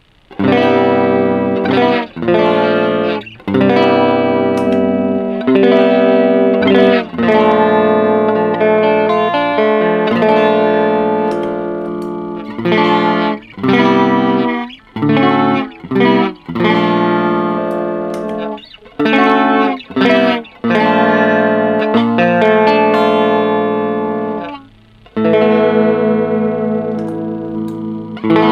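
Electric guitar playing clean chords and picked notes through an Ibanez SC10 Super Stereo Chorus pedal, the held notes wavering gently with the chorus.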